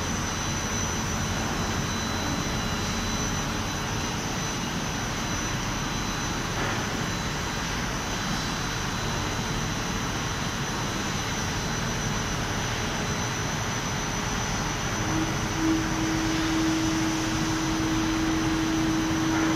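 Steady machinery noise of a factory floor with belt conveyors running, and a thin high whine held throughout. About fifteen seconds in, a steady lower hum starts and carries on.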